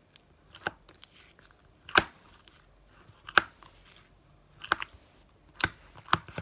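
Soft slime being stretched and squeezed by hand, giving sharp clicking pops about once a second.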